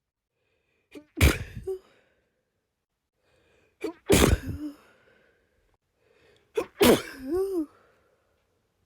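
Hay-fever sneezing fit: three sharp sneezes about three seconds apart. Each follows a quick catch of breath and ends in a brief voiced tail.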